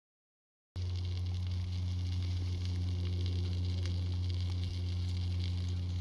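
Small campfire crackling faintly under a loud, steady low hum, which starts abruptly after about three-quarters of a second of silence.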